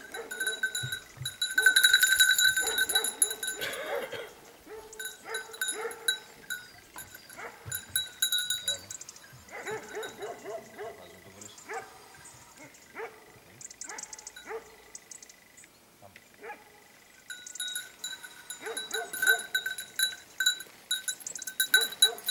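Small metal animal bells clanking and jingling in irregular bursts. They are loudest about two seconds in and again near the end, and quieter in the middle.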